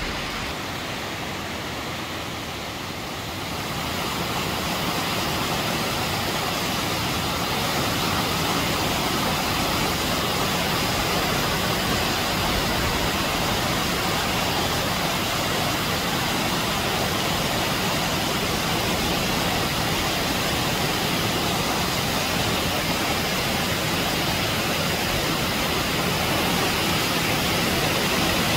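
The Acquafraggia waterfall: water falling down a rock face, making a steady rushing noise that grows a little louder about four seconds in.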